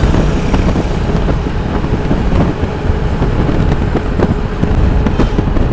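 Steady wind rush on the microphone with low road rumble while riding an Aprilia SXR160 scooter at highway speed.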